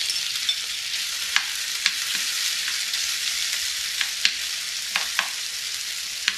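Raw shrimp sizzling steadily in hot olive oil in a skillet. A metal utensil clicks sharply against the pan about seven times as the shrimp are spread out.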